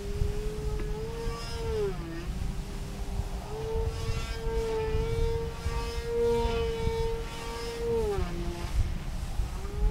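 Motor and propeller of a Premier vector unit on a Jive kite whining, its pitch stepping up and down: up about a second in, down near two seconds, then held high from about three and a half to eight seconds before dropping again. Wind buffets the microphone throughout.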